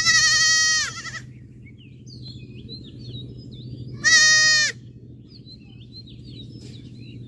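A goat bleating twice. The first call lasts about a second from the start and the second is shorter, about four seconds in; each ends with a drop in pitch. A steady low hum and faint high chirps fill the gaps between the calls.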